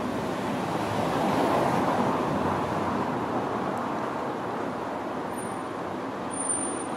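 Road traffic noise: a steady rush that swells about one to two seconds in, as a vehicle passes, then eases off.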